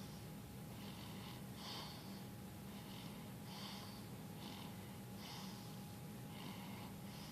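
Soft, hissy snoring breaths from a sleeper, in and out about once a second, over a steady low hum.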